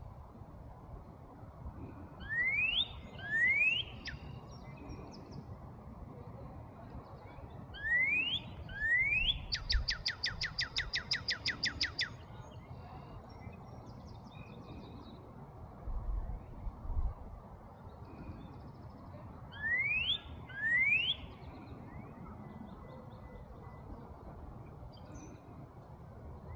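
Northern cardinal singing: loud rising whistled notes in pairs, heard three times, with a rapid trill of about two seconds after the second pair. Fainter chirps of other birds run in the background.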